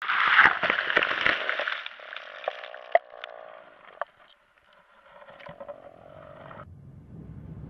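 Underwater crackling and scraping with many sharp clicks, loudest in the first two seconds and then fading to a few isolated clicks, before cutting off abruptly; a faint low rumble remains near the end.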